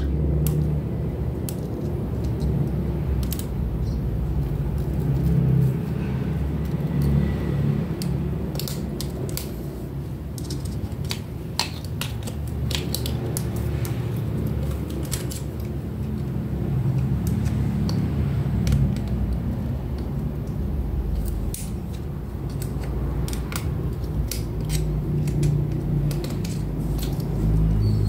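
Screwdriver clicking and scraping irregularly against metal parts inside an opened electric water pump's motor housing, over a steady low rumble.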